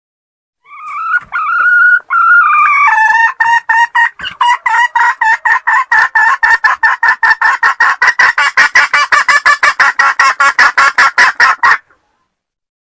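Wild junglefowl hen (Philippine labuyo) calling: a few drawn-out notes that bend up and down, then a fast, even run of short clucks, about five a second, that stops suddenly near the end.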